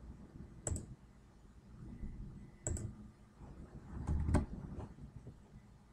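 Three faint computer mouse clicks, about two seconds apart, each with a soft low knock beneath it.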